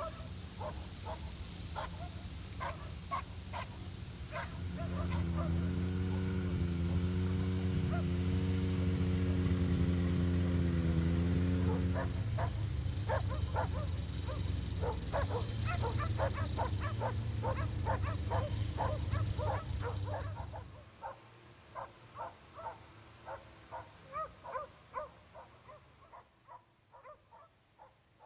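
Snowmobile engine running with a steady low hum that rises and wavers in pitch for a while, then cuts out about two thirds of the way through. Throughout, short animal calls from the moving herd come quickly, several a second, and continue on their own after the engine stops.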